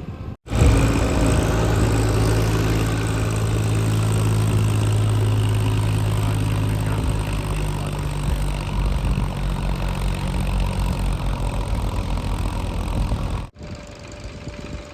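Heavy diesel engine running loud and steady. It cuts in abruptly just after the start and drops away suddenly near the end.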